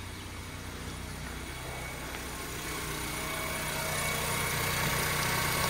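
2007 Honda Civic's four-cylinder engine idling steadily, growing gradually louder, with the AC compressor not engaged because its control connector is unplugged.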